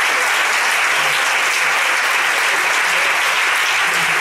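An audience applauding: steady, dense clapping that holds without a break.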